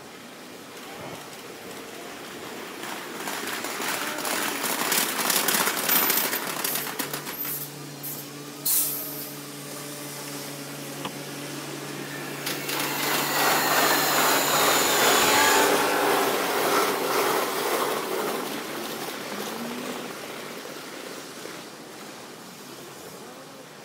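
Kintetsu electric trains on the tracks: rail and wheel noise with many clicks swells up twice and dies away, with a steady low hum in between and a sharp bang in the middle.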